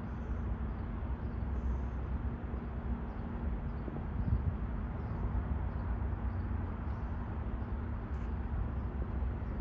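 Diesel-electric locomotives of a Union Pacific multi-unit consist running as they approach: a steady low rumble with a steady engine drone over it.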